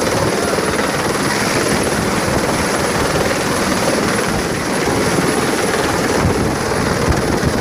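Rescue helicopter hovering close by, its rotor and engine running loud and steady.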